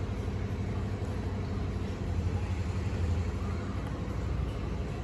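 A steady low mechanical hum, even throughout.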